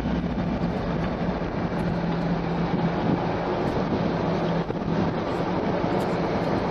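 Steady noise inside a car's cabin with a low steady hum: the engine running while the car is stopped or barely moving.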